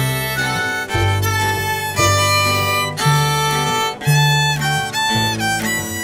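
Background music: a fiddle tune over guitar accompaniment, with bass notes changing about once a second.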